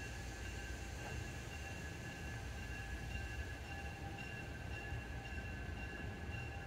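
EMD GP9 diesel-electric locomotive running at low throttle, its two-stroke 567 diesel giving a steady low rumble, with a few steady high-pitched tones above it.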